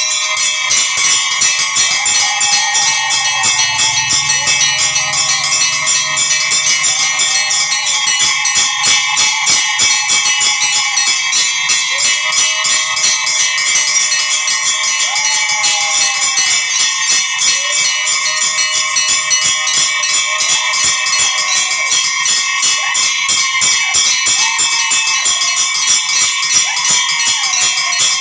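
Temple bells ringing rapidly and without a break, a dense metallic clangor, with long wavering tones rising and falling over it.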